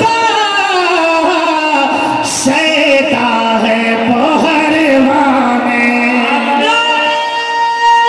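A man singing a naat (Urdu devotional poem in praise of the Prophet) unaccompanied into a microphone, with long held notes and sliding ornaments between them.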